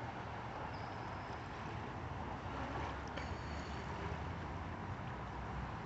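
Steady rushing of a river's flowing water, mixed with wind on the microphone.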